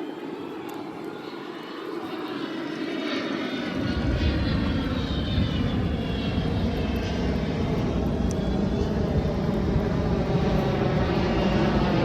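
Aircraft engine noise overhead: a steady rushing noise that swells over the first few seconds, with a deep rumble joining about four seconds in and then holding.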